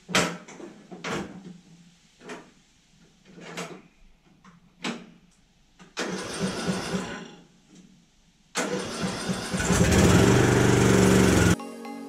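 Craftsman riding lawn mower being started: a few short, sharp sounds, then a brief burst of starter cranking about six seconds in, then more cranking near the end until the engine catches and runs, cut off suddenly. It is the mower's first start on its new battery.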